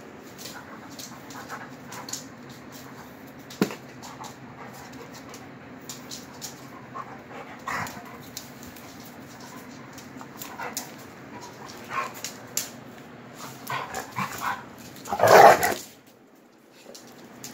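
Two Rhodesian ridgebacks, an adult and a young puppy, play-wrestling with their mouths: scattered short scuffles, snaps and dog noises, with one louder dog vocal burst about fifteen seconds in.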